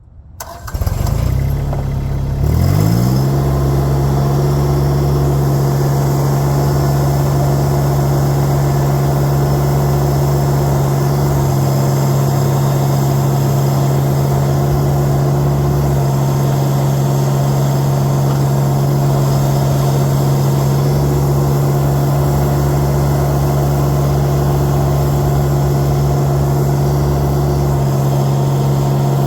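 LS MT1-series compact tractor's diesel engine running; it comes in about half a second in, its pitch rises to a higher steady speed over the next two seconds, and it then runs steadily at the raised RPM.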